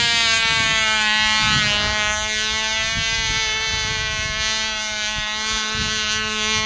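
Cox .049 two-stroke glow engine of a small RC biplane buzzing at full revs in flight: a steady high-pitched whine whose pitch sags slightly about two seconds in and then holds. Wind rumbles on the microphone underneath.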